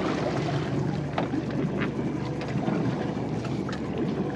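Wind and water around a small fishing boat at sea, under a low steady hum, with a few light clicks.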